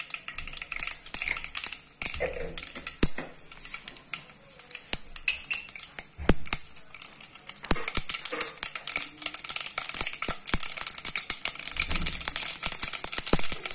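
Mustard seeds crackling and popping in hot coconut oil over a steady sizzle, the stage of tempering when the oil is hot enough for the seeds to splutter. The pops come faster and the sizzle grows toward the end.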